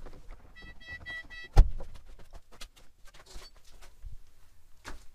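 A car's dashboard warning chime beeps four times in quick succession. Then the car door shuts with a loud thud about a second and a half in, followed by faint scuffs and clicks.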